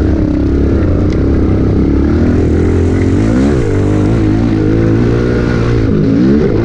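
Pit bike engine running under throttle, heard from on board, revving up and falling back about three and a half seconds in and dipping then climbing again near the end.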